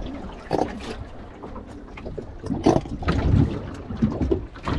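Low wind rumble on the microphone, with scattered knocks and handling sounds.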